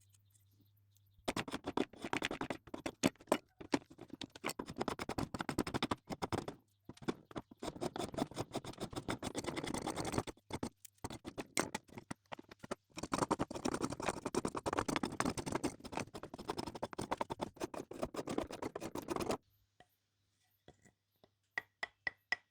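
Rapid, continuous scratching strokes of hand abrasive work on a surface, in long runs broken by brief pauses, over a faint steady low hum.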